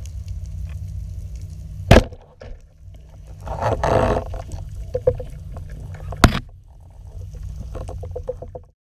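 Underwater sound from a camera on a spearfishing speargun: a steady low rush of water with two sharp clicks, about two and six seconds in, and a short burst of hissing noise around four seconds. Faint crackling ticks come near the end, and the sound cuts off suddenly just before the end.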